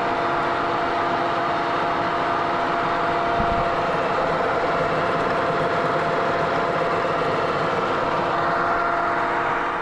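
Vertical milling machine side-milling steel gauge plate with an end mill: a steady, dense cutting noise with a few steady tones from the running machine.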